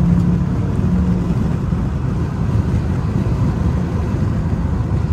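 Dodge Charger R/T's 5.7-litre HEMI V8 and road noise heard from inside the cabin while cruising at highway speed, a steady low rumble. A low engine hum fades out just over a second in.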